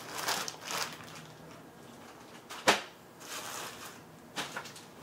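Paper and plastic packaging rustling in scattered bursts as it is handled, with one sharp tap or knock about two and a half seconds in.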